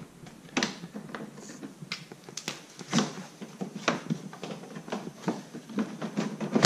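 Plastic front bumper cover of a Mk5 VW Golf GTI being pulled and flexed loose by hand: a run of irregular clicks and knocks as its clips and edges give.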